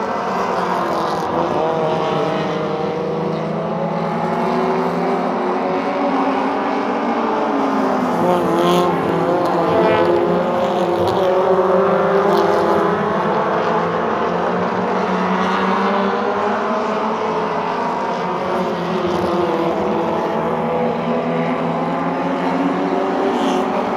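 A field of stock car engines racing around a short oval, several cars heard at once, their pitch rising and falling as they accelerate out of the turns and lift again.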